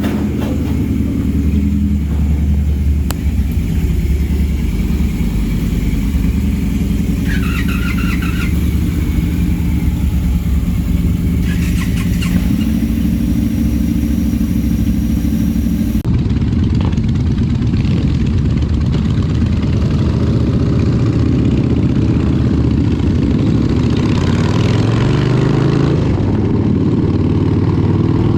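Motorcycle engine running steadily while riding, with a cut about halfway through and the engine pitch rising near the end as the bike accelerates.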